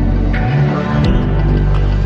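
Dark electronic background music: sustained low chords with a percussive hit about a second in.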